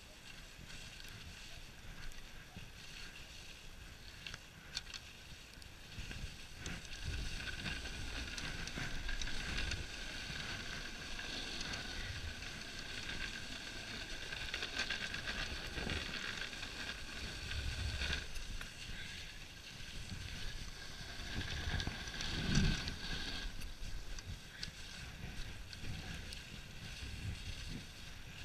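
Dog sled gliding over packed snow: a steady hiss and scrape of the runners, with occasional low bumps and knocks as the sled rides over the uneven trail, the loudest about three quarters of the way through.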